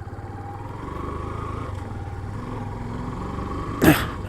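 A vehicle engine drones steadily, with a brief loud rush of noise near the end.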